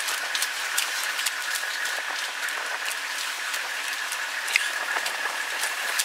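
Open safari vehicle driving along a bumpy dirt track, heard from its seats: a steady drive noise with a constant whining tone, and frequent small rattles and knocks from the body.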